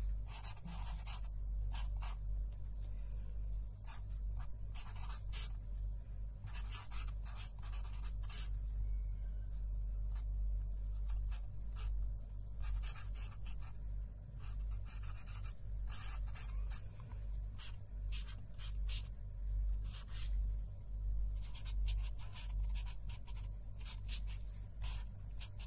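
Pen scratching across paper in quick, irregular strokes that come in clusters with short pauses, close to the microphone, over a steady low hum.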